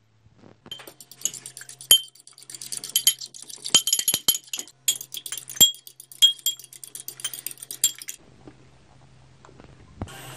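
Raw eggs being beaten with a metal fork in a ceramic bowl: fast, uneven clinking of the fork against the bowl, which stops after about seven seconds. Near the end there is a single knock, then a steady hiss starts.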